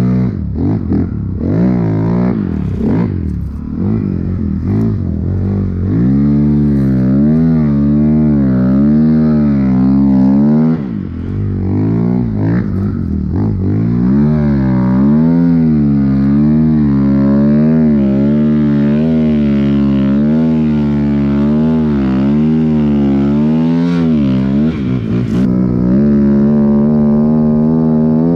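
Snowbike engine (a dirt bike fitted with a snow track kit) revving up and down as it rides through deep powder, the pitch rising and falling every second or so. Near the end it holds a steady high rpm.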